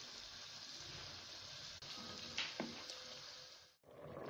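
Karela (bitter gourd) pieces frying in hot ghee in a pot: a steady sizzle and bubble. Two short, sharp sounds come a little past halfway, and the sound drops out briefly near the end.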